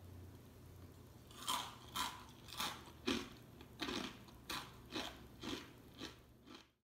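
Crisp rice-flour chakli crunching as it is bitten and chewed: about ten sharp crunches, roughly two a second, starting a little over a second in and stopping just before the end.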